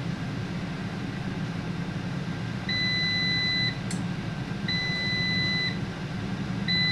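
COSORI Dual Zone air fryer beeping as its warm-up countdown ends: three steady one-second beeps about two seconds apart, starting about three seconds in, signalling the preheat is done. Underneath is the steady hum of an air fryer fan running.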